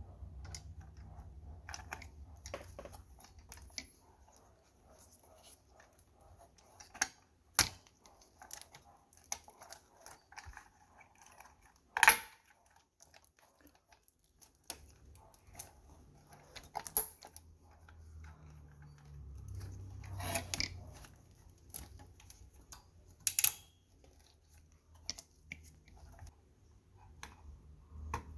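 Scattered clicks and taps of hands handling desktop computer parts, with a few sharper plastic-and-metal clicks, the loudest about twelve seconds in.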